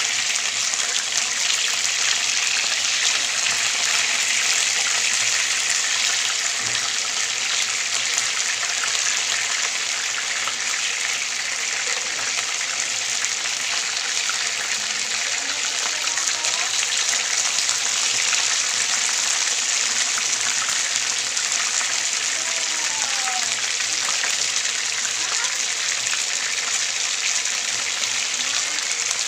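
Flour-breaded chicken pieces shallow-frying in hot oil in a pan, a steady, even sizzle.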